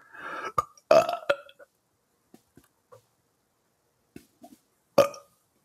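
A man belching on cue: a couple of short burps in the first second or so and another sharp one near the end, with small mouth clicks between.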